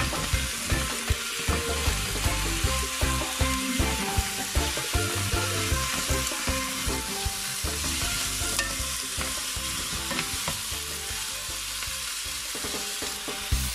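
Whole crabs and sliced onion sizzling in hot oil in a frying pan, stirred and turned with wooden utensils that knock and scrape irregularly against the pan.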